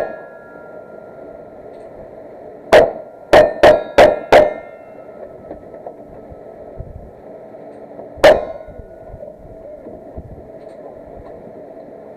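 Seven gunshots from the cowboy action stage, each followed by a short metallic ring: one at the start, a quick string of five about a third of a second apart beginning near three seconds in, then a single shot near the end.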